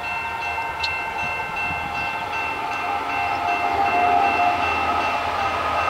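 Approaching diesel freight train's air horn held in one long, steady chord over a low rumble, slowly growing louder as the train draws near.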